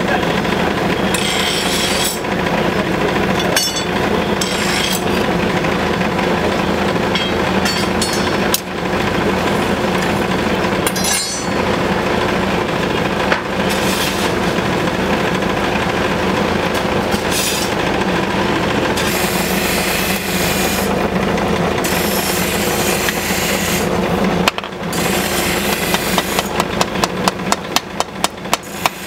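Forge blower and fire giving a loud, steady rush with a low hum while the knife steel heats for forge welding, with a few single knocks. About 26 seconds in, rapid, even hammer blows on the glowing steel begin, about four or five a second.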